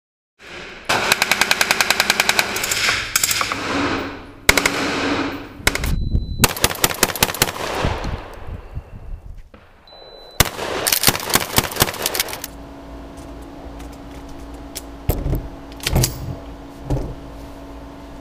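Rapid gunfire in several bursts, each a fast string of shots. It gives way, about twelve seconds in, to a steady hum with a few single thuds near the end.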